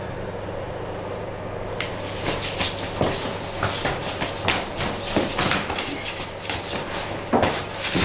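Scuffling feet, body contact and clothing slaps from a staged hand-to-hand fight: an irregular run of quick knocks and thuds that starts about two seconds in, over a steady low hum.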